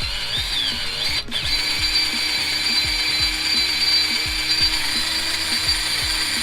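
Power drill running steadily, drilling holes in the plate for a poly transmission mount, with a brief stop about a second in. Background music with a steady beat plays underneath.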